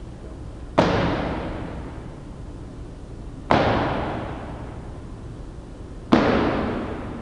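Three sharp thuds about two and a half seconds apart, each ringing out over a second or more.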